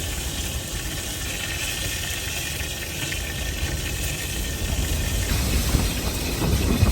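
Blizzard wind blowing steadily with a rushing hiss and a low, gusty rumble, growing stronger near the end.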